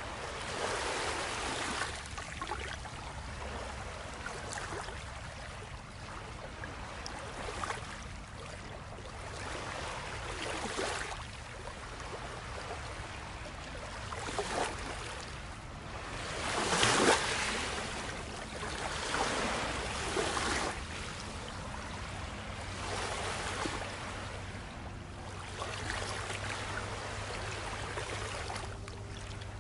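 Water washing and splashing in irregular swells every second or two, the biggest about halfway through.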